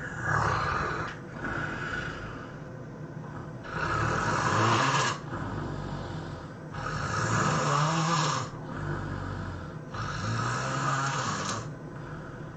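A person snoring, four loud snores spaced about three seconds apart with quieter breaths in between.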